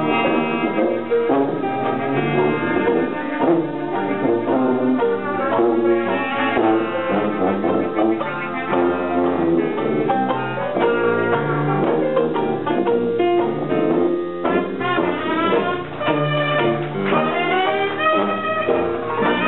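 Hot jazz band playing, with brass instruments carrying the tune over a rhythm section, and several sliding brass notes near the end.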